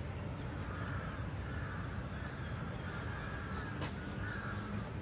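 A crow cawing four times, about a second apart, over a steady low rumble.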